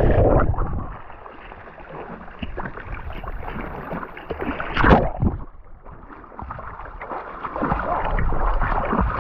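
Muffled underwater rush of bubbles for the first half-second just after a jump into a lake. Then the camera surfaces and there is irregular water splashing and sloshing from a man swimming, with a louder splash about five seconds in.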